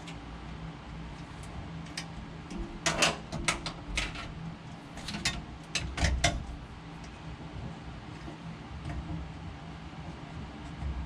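A handful of sharp metallic clicks and knocks, bunched in the middle few seconds, over a steady low hum.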